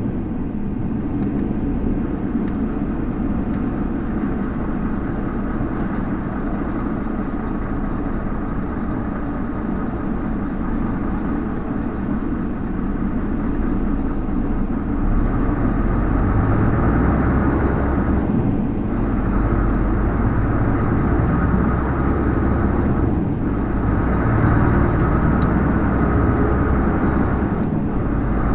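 Heavy truck's diesel engine and road noise heard from inside the cab. About halfway through it pulls harder and gets louder, with three brief breaks in the engine sound a few seconds apart as it shifts up through the gears.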